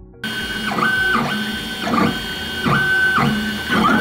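Creality Ender 3 3D printer running: its stepper motors whine in a steady high tone that repeatedly dips lower and glides back up, about once a second, as the print head's moves change. It comes in suddenly right at the start.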